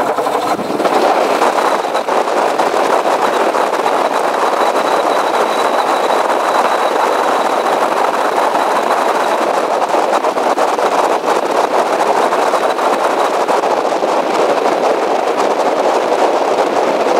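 Rotax 912 flat-four aircraft engine and propeller running steadily just after a cold start, the choke released and the throttle cracked slightly open. A faint high whine sits over it and fades out about two-thirds of the way through.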